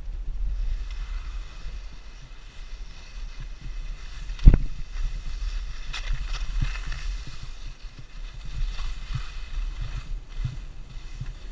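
Wind rumbling on the microphone of a camera carried by a skier on the way down, with skis scraping and hissing over snow and one sharp knock about four and a half seconds in.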